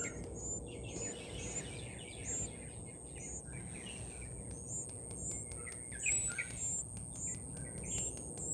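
Young birds chirping: short, high chirps repeating about twice a second, with softer lower chirps mixed in, over a steady thin high-pitched tone.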